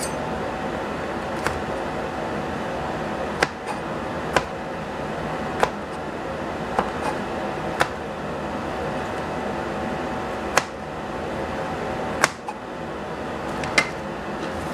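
Chinese cleaver chopping through a bundle of long beans onto a plastic cutting board: about ten single sharp chops, irregularly spaced a second or two apart, over a steady background hum.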